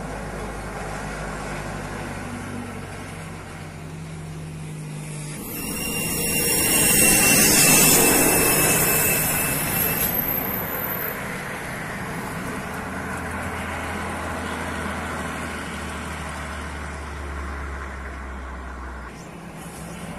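Heavy diesel trucks driving through a bend, their engines a low steady drone. One passes close by, swelling to a loud rush with a high whine from about six to ten seconds in, then fading as another truck's engine drones on.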